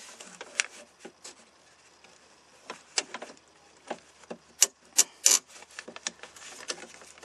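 Scattered sharp clicks and taps of the plastic interior door handle and its metal linkage rods being handled and pushed into place in a 1995–99 Chevy truck door, with a quick run of the loudest clicks a little past the middle.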